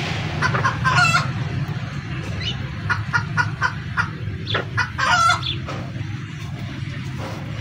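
Chickens clucking in short, clipped calls: a few near the start, a quick run of clucks about three seconds in, and a louder call about five seconds in. A steady low hum runs underneath.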